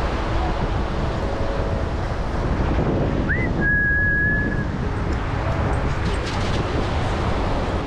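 Wind buffeting the microphone over beach surf, a steady rushing noise. Just before the middle comes a short whistle: a quick rising note, then a held note about a second long.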